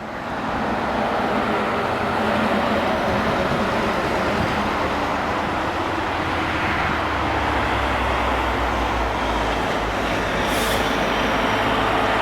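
Airbus A380 heard from inside the passenger cabin during takeoff: a loud, steady roar of the jet engines with a low rumble underneath. A brief sharp click about ten seconds in.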